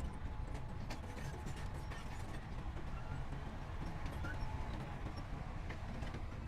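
Heavy diesel earthmoving machinery running steadily with a low rumble, with scattered light metallic clicks and clanks.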